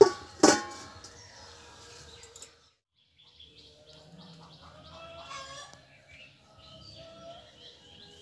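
A steel plate set down as a lid on a steel bowl clanks twice with a metallic ring, about half a second apart. After a short gap, birds chirp.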